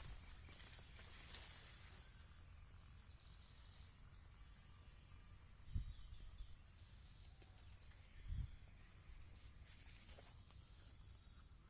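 Faint, steady, high-pitched chirring of insects in the field, with two low thumps on the phone's microphone about six and eight seconds in.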